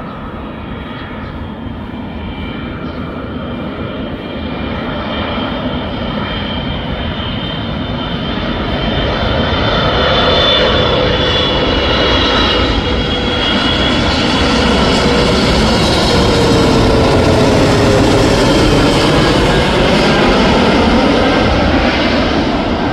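Airbus A330-223F freighter's Pratt & Whitney PW4000 turbofans on landing approach, gear and flaps down, growing louder as the jet passes low overhead. A whine of several tones slides lower in pitch as it goes by.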